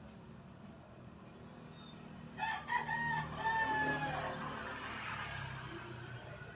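A rooster crows once, starting about two and a half seconds in, its call ending in a falling tail, over a low steady hum.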